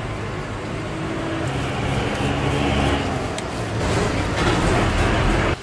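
Steady, noisy background rumble and hiss like busy street noise, growing louder over the last couple of seconds and cutting off abruptly.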